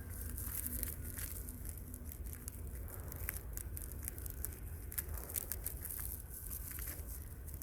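Forest ambience: a steady low rumble of wind on the microphone and a high hiss, with scattered small crackles and rustles like twigs and dry leaves.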